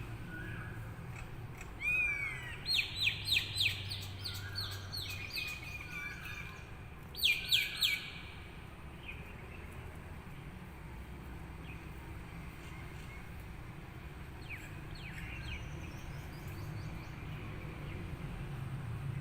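Birds calling outdoors: a sliding note about two seconds in, then a quick run of sharp repeated chirps, another short burst of chirps around seven seconds and faint ones later, over a steady low rumble.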